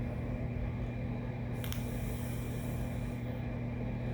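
A steady low hum, with a short click about one and a half seconds in and a faint high hiss after it.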